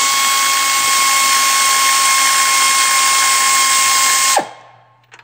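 Matco 3/8-inch air ratchet running flat out with a steady, loud high whine as it spins out a freed control arm bolt. About four seconds in the trigger is released and the whine drops in pitch and cuts off.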